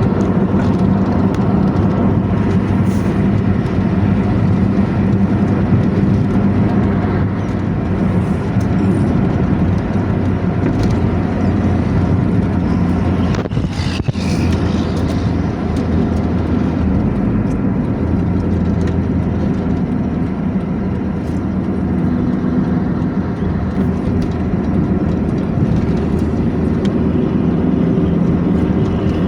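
Intercity bus engine running steadily under way, through an exhaust described as 'ngorok', a deep snoring growl. About halfway through the engine note briefly dips under a short burst of higher-pitched noise.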